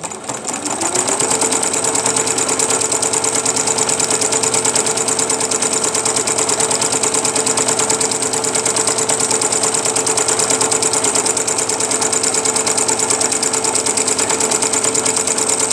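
Electric home sewing machine running at speed, stitching a seam through fabric: its motor whine rises over about the first second, then holds steady under fast, even needle strokes.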